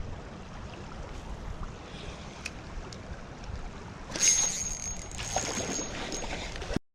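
Steady rush of flowing creek water. From about four seconds in, a louder noisy stretch carries a thin, high, steady whine, and then the sound cuts off suddenly near the end.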